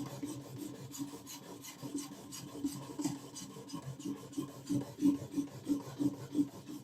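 A knife blade being stroked back and forth across a sharpening stone: a rhythm of gritty scraping strokes that picks up to about three strokes a second in the second half.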